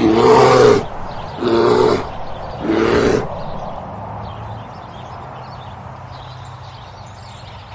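A bear roaring three times in quick succession, each roar under a second long, then a steady low hum.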